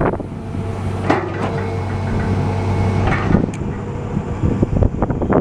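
Hitachi EX200-5 excavator's diesel engine running steadily, with several sharp knocks or clanks over it.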